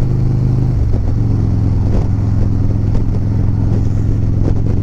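Harley-Davidson Road Glide's V-twin engine running steadily at highway cruising speed, heard from the rider's seat with a rush of wind; the engine note shifts slightly about a second in.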